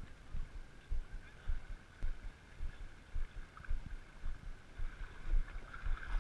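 Shallow river water sloshing and lapping close to the microphone in uneven low knocks, about two a second, over a steady hiss.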